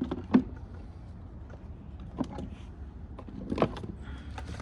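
Handling of lawn mower parts during carburettor removal: a few sharp clicks and knocks, the loudest just under half a second in, over a low steady hum.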